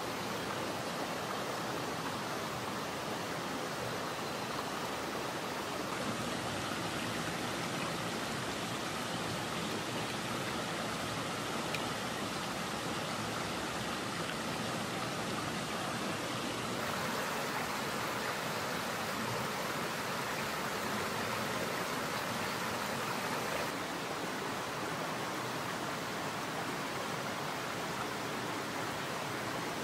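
Steady rushing of a mountain stream flowing over rocks.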